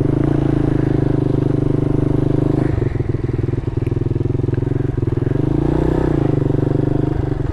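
Small single-cylinder mini motorcycle engine running at a steady low speed on a dirt trail, easing off about three seconds in with a few knocks and rattles, then briefly rising and falling in pitch near six seconds.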